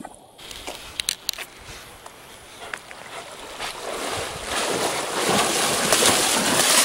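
A German Shepherd swimming through shallow floodwater, paddling and splashing. The splashing grows louder as the dog comes in close, with a few sharp clicks about a second in.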